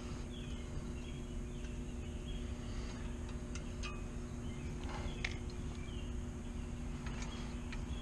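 Birds chirping in short falling calls over a steady low hum, with a few sharp metal clicks from hand tools at work on the motorcycle.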